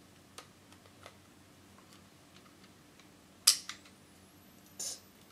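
Small plastic clicks from handling an electronic camera flash, then about three and a half seconds in a sharp click followed by a faint high whine rising in pitch, the sound of the flash's capacitor charging. A short rustle comes near the end.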